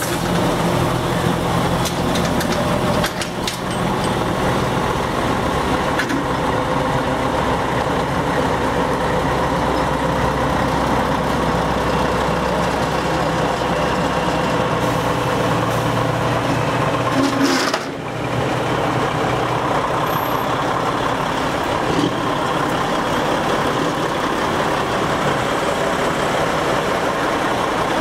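Heavy lorry diesel engines running steadily as classic tractor units, among them a Foden and an ERF, drive slowly past one after another. The sound changes abruptly about three seconds in and again about eighteen seconds in.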